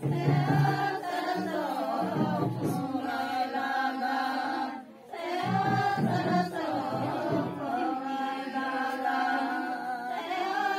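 Several voices singing a chant-like folk song together, breaking off briefly about five seconds in before carrying on.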